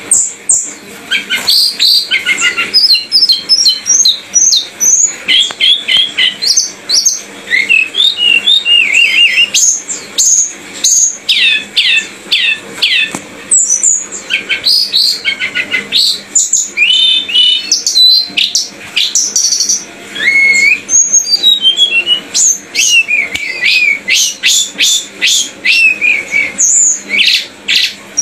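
A songbird singing a long, varied song of rapid chirps, trills and whistled glides, with brief pauses.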